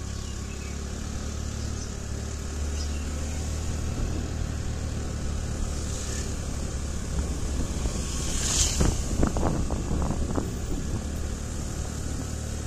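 Motorcycle running steadily while being ridden, with wind noise on the phone microphone. A brief cluster of sharp knocks or rattles comes about nine seconds in.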